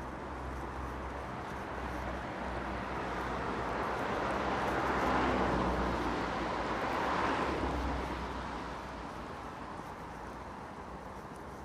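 Road traffic: vehicles passing, their noise swelling to a peak around the middle, rising again shortly after, then fading away.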